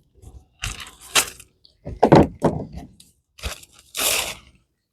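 Plastic packaging of a diamond painting kit crinkling in several short separate bursts as it is opened and handled.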